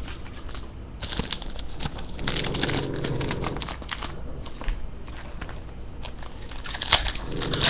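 Foil trading-card pack wrappers crinkling and crackling as the packs are handled, in irregular bursts of small crackles.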